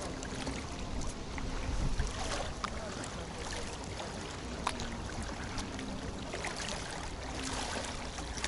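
Wind rumbling on the microphone, with small waves lapping and splashing at the bank and a scatter of short clicks.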